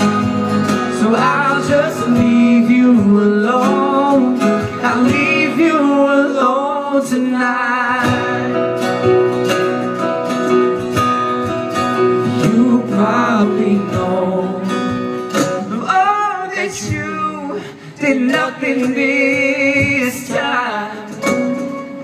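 Male-voiced pop song played live by a band through a stage PA: singing over strummed acoustic guitar, keyboard and drums, with long wavering held notes in the voice.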